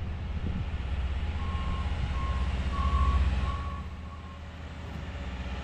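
A rail-mounted track maintenance machine approaching on the rails, its engine rumbling loudest about three seconds in, while its warning alarm beeps several times at a steady high pitch.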